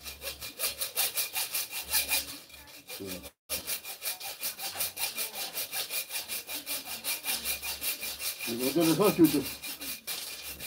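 Hand saw cutting wood in quick, even back-and-forth strokes. The sound cuts out for a moment about three seconds in. A short wavering pitched sound rises over the sawing about nine seconds in.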